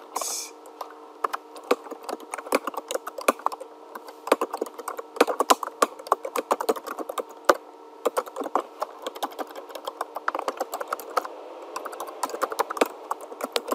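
Typing on a computer keyboard: quick, irregular key clicks in bursts of keystrokes, over a faint steady hum.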